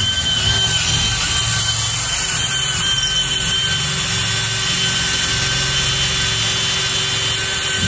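Cordless drill running at a steady speed with a constant motor whine, boring a 3/8-inch bit up through a wooden wall top plate.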